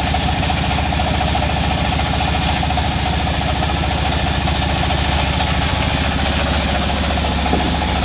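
Sawmill's engine idling steadily with a fast, even beat, running unloaded with no wood being cut.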